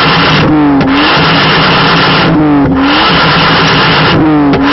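Toyota Starlet EP82's supercharged engine revved hard at the exhaust, very loud. The revs are held high, then drop briefly and climb again about every two seconds, three times.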